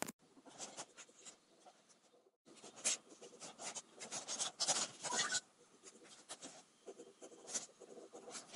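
Black ink pen scratching over the surface of a smooth rock in short, irregular strokes as a flower outline is drawn on it. The scratching breaks off briefly about two and a half seconds in.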